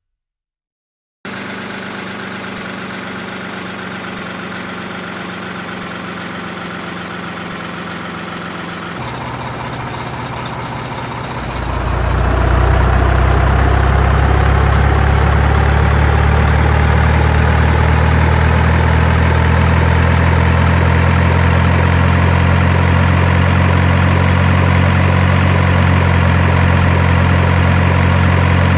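Heavy engine running steadily, cutting in suddenly about a second in. Around eleven to twelve seconds in it grows much louder and deeper, then runs on evenly with its pitch slowly climbing.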